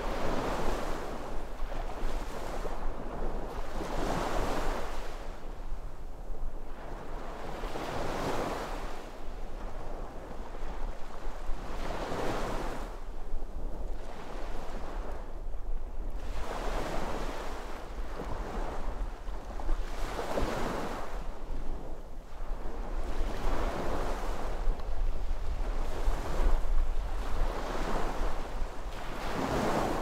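Sea waves breaking and washing up on the shore, a rush that swells and fades about every four seconds, with a low wind rumble on the microphone underneath.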